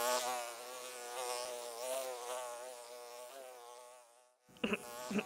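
Buzzing of a flying insect, a wavering hum that fades out about four seconds in.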